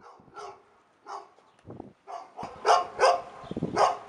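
A dog barking repeatedly: several softer barks, then three loud barks in the second half.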